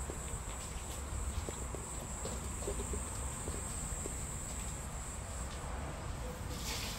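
Steady high-pitched insect chirring, with faint ticks and a low rumble underneath and a short rush of noise near the end.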